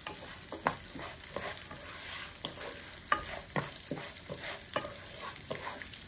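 Rice with chopped onion and garlic sizzling in butter and oil in a pan as a utensil stirs it, scraping and clicking irregularly against the pan several times a second.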